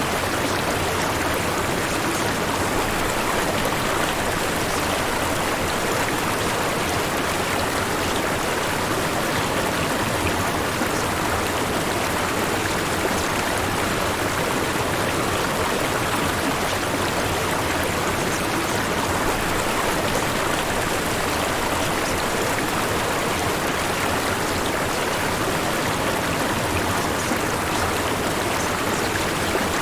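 Steady white noise: an even, unchanging rushing hiss that sounds much like running water.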